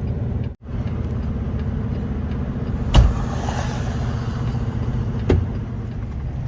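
Semi truck's diesel engine running steadily, heard from inside the cab, with a short knock about three seconds in and a fainter one about two seconds later.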